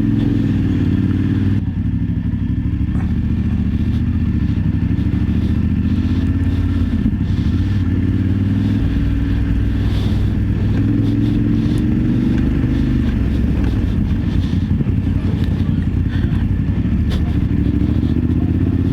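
BMW F850GS parallel-twin engine running under way, its note rising and falling several times with throttle and gear changes.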